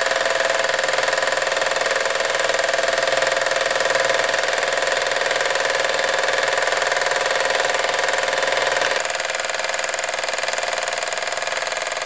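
Wilesco D22 twin-cylinder toy steam engine running fast and steady, turning its flywheel and belt-driven line shaft. It gets a little quieter from about nine seconds in.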